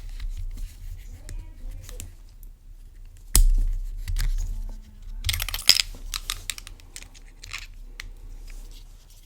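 Handling noise: a sharp knock about three and a half seconds in, then a quick flurry of small clicks and rustling a couple of seconds later, with scattered lighter clicks around them.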